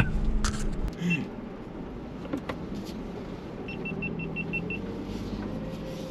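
Ford Bronco running over the trail, a steady low engine hum that drops away about a second in, with a quick run of seven short electronic beeps from the vehicle's warning chime about midway.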